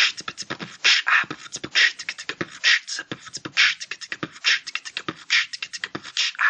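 A young man beatboxing: a quick run of mouth clicks and low kick-like thumps, with a longer hissing hi-hat sound about once a second.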